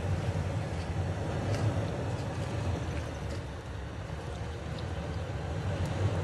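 Engine of a lifted off-road truck running steadily at low revs as it crawls slowly over rocks and roots on a steep trail.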